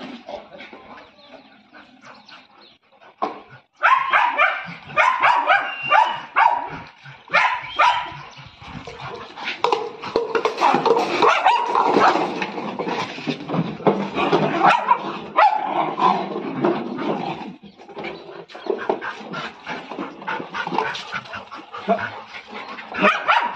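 Several dogs barking excitedly, short barks coming fast and overlapping. It is quieter for the first few seconds, and the loud barking starts about four seconds in.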